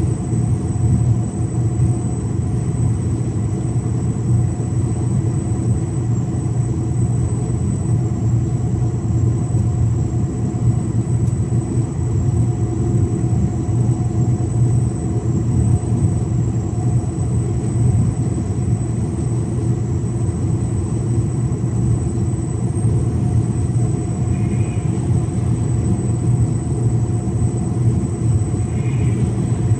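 Mercedes-Benz Actros 1853 truck driving at a steady cruise on the motorway with an empty semi-trailer: an even, deep engine drone mixed with road and tyre noise, with a thin steady high whine over it.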